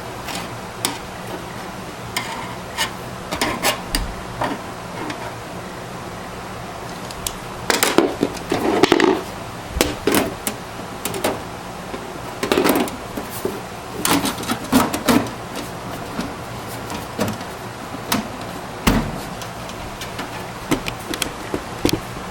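Irregular clicks and knocks of plastic and metal as desktop computer parts are handled, with a busy stretch of rattling in the middle, over a steady low hum.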